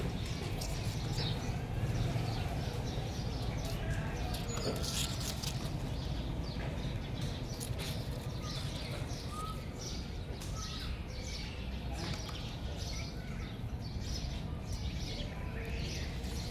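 Small birds chirping again and again, short high notes and quick falling calls, over a steady low background rumble.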